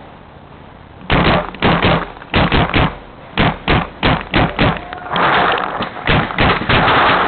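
Tippmann A5 paintball marker firing in quick bursts of two to four shots. It starts about a second in, and the shots come thicker and faster near the end.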